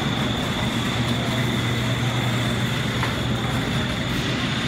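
A metal supermarket shopping cart rolling over a tile floor, giving a steady rumble and rattle, over a constant low hum.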